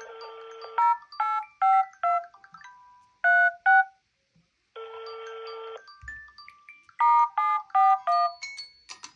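Smartphone incoming-call ringtone: a melody that opens with a buzzy chord followed by a run of short notes, repeating about every five seconds.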